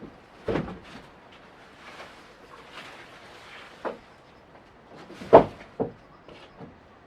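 Several sharp knocks and thuds over a low hiss: one about half a second in, another near four seconds, and the loudest pair of knocks close together about five and a half seconds in.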